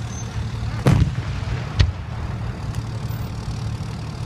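Fireworks shells bursting: a loud bang about a second in, a second bang about a second later and a fainter one after that, over a steady low rumble.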